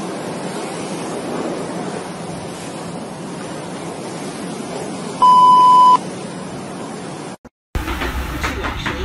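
A loud, steady, high-pitched censor bleep lasting under a second, about five seconds in, over a steady background hiss. Near the end the sound cuts out briefly and a different, busier background with rapid clicking starts.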